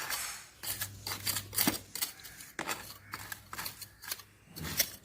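Loose soil being scooped and packed into a plastic bucket: a string of irregular scraping and crunching noises.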